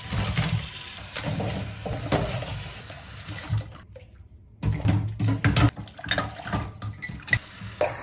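Tap water running into a kitchen sink, with dishes knocking and clinking. The sound cuts out abruptly for under a second about halfway through, then comes back with sharper clattering knocks.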